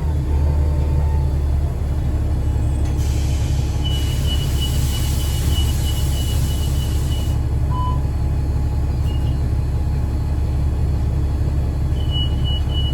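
Steady low rumble of a 2009 Gillig BRT 40-foot transit bus's engine and drivetrain, heard from inside the bus. About three seconds in, a hiss of air lasts some four seconds, with a thin, high, pulsing tone over it. The tone comes back near the end.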